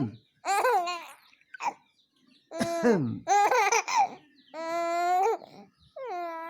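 Baby laughing and babbling in a string of short bursts with pauses between them.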